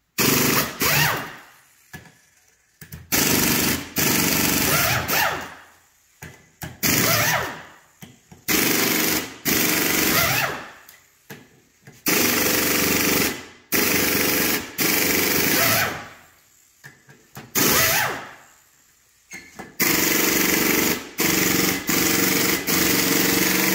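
Air tool running Torx bolts out of the cam cap on a Subaru EJ25 cylinder head, in about a dozen short rattling bursts. Each burst winds down as the trigger is let go. The tool is about ten years old, and the mechanic says it is getting a little old and has seen better days.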